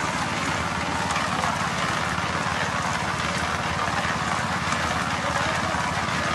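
Concrete mixer running steadily, its drum turning a sand and cement mix for foundation concrete.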